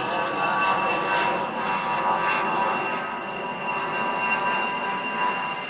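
Fairchild A-10C Thunderbolt II's twin TF34 turbofan engines at takeoff power as the jet climbs out just after lift-off: a steady rush of jet noise with a high, steady whine.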